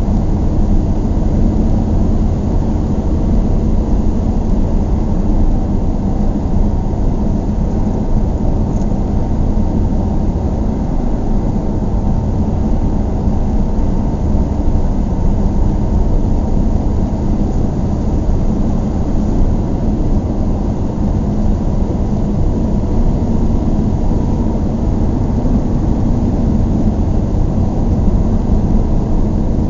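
Interior noise of a closed car cruising on the highway: a steady low road and engine drone, even throughout with no changes.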